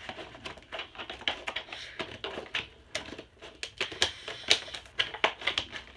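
Camcorder packaging being cut open with a blade: a quick, irregular run of sharp clicks and scratches.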